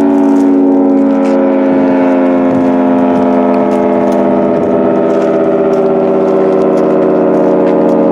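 Federal Signal 3T22 three-tone fire siren sounding at close range on an attack test, a loud steady chord of several tones whose pitch sags slightly, sounding as it should after a damper repair.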